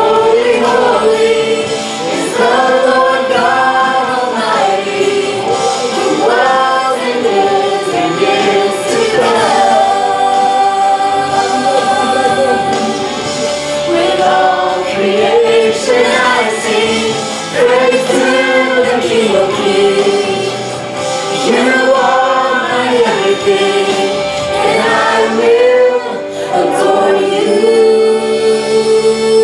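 Group gospel worship singing with musical accompaniment, voices rising and falling through sung phrases.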